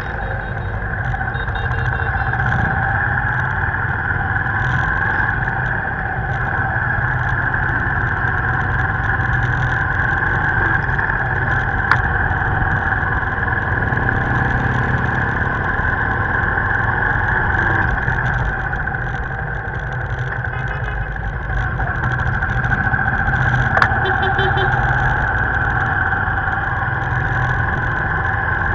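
Motorbike running steadily at road speed: an unbroken engine drone with road noise, and two brief ticks about twelve seconds apart.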